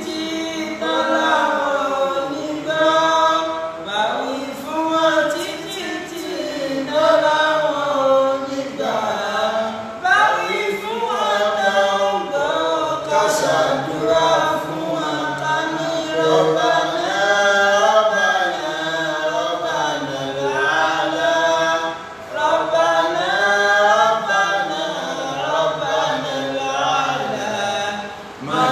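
A man's voice reciting the Quran in Arabic in a melodic, drawn-out chant, in long phrases with a short break about two-thirds of the way through.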